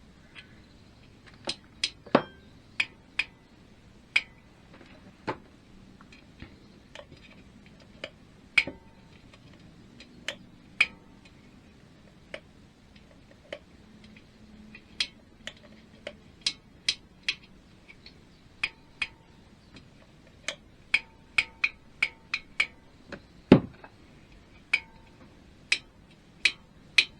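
Irregular sharp metallic clicks and clinks of hand tools working on the cylinder-head fastenings of a BSA A50 engine, some ringing briefly, with one heavier knock near the end.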